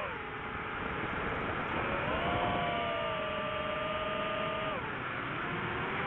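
Quadcopter drone's electric motors and propellers whining over a steady rushing noise. The whine drops in pitch at the start, rises about two seconds in, holds steady, then drops again near the five-second mark as the throttle changes.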